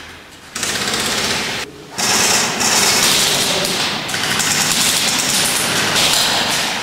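Airsoft guns firing long full-auto bursts, a fast mechanical rattle starting about half a second in, with a short pause a little before two seconds in.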